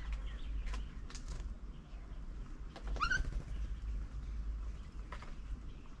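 Birds calling around a bird table: scattered short chirps and a few sharp clicks, with one short rising call about three seconds in, over a steady low rumble.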